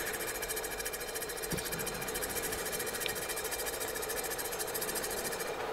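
Wood-cutting circular saw blade, turning on a lathe spindle at about 1200 rpm, cutting steadily through a silumin (cast aluminium) blank with oil. It makes an even whir, and its high hiss stops shortly before the end.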